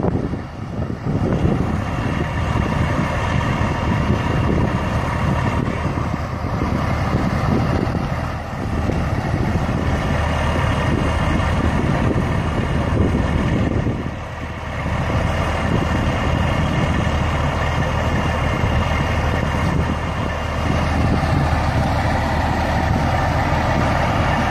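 Truck engine idling steadily, a little louder near the end.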